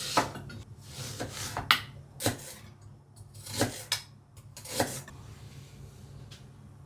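Kitchenware being handled: five sharp knocks and clinks about a second apart, with rubbing and scraping between them, then a quieter stretch for the last couple of seconds.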